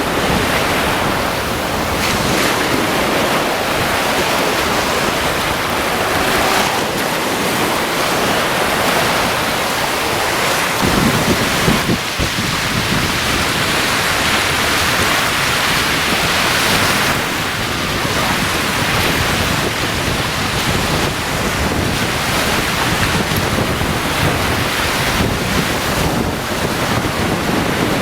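Caspian Sea waves washing onto the beach in a steady wash of surf, with wind buffeting the microphone.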